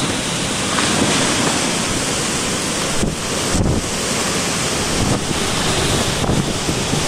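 Loud, steady rush of torrential rain and strong gusting wind, with the wind buffeting the microphone into a deep rumble.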